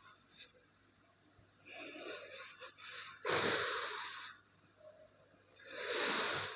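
Kinetic sand being cut and crumbled, giving crunchy, hissing rushes: softer rustling, then two loud crunches about a second long, one near the middle and one near the end, with a sharp click as it ends.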